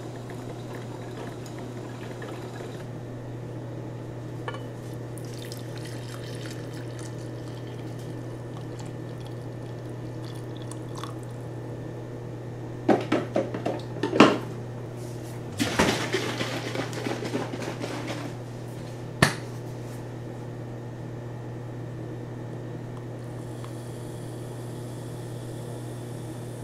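Making coffee: a ceramic mug clinks several times on a metal wire shelf, then liquid is poured into the mug. Near the end creamer pours in from a bottle, with a steady low hum underneath throughout.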